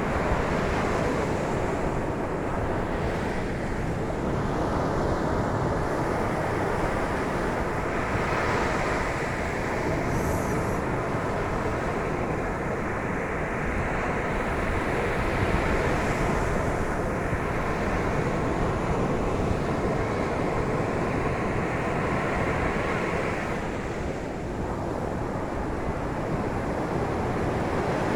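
Mediterranean surf: waves breaking and washing onto the beach in a continuous rush that swells and eases gently.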